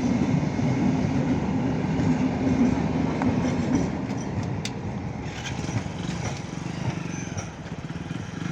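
Train running on the rails: a steady rumble with a low hum that fades after about four seconds, the whole sound easing a little, and a sharp click near the middle.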